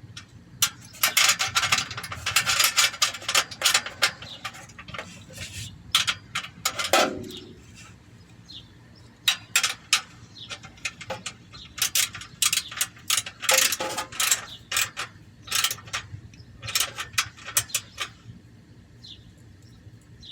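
Ratchet wrench clicking in bursts as the bolts of a catalytic converter heat shield are run down and tightened. There are quick runs of clicks with short pauses between them.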